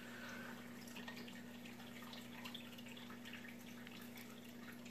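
Quiet room tone with a steady low electrical hum and a few faint light clicks as small reel parts are handled on a work mat.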